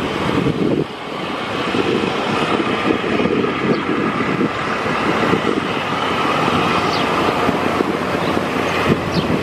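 Steady roar of a Boeing 737-800 jet airliner's engines mixed with heavy wind rumble on the microphone, with a brief dip in loudness about a second in.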